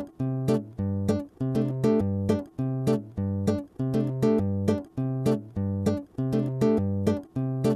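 Gentle plucked acoustic guitar music for the end credits: picked chords repeating in a steady pattern, about two notes a second, each ringing and fading before the next.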